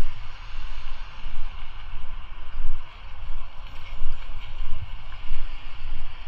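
Street traffic on a wet road: a steady hiss of passing vehicles, with wind buffeting the microphone in uneven low rumbles.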